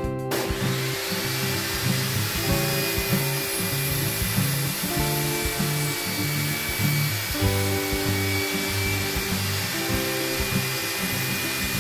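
Table saw running and ripping a board, a steady high-pitched noise of blade and motor that cuts in suddenly at the very start, under background music.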